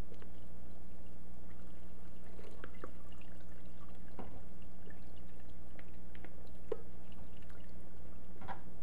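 Cold water poured from a pitcher onto cheese curds in a plastic colander, then scattered drips as it drains through into the pan below, setting the curds. A steady low hum runs underneath.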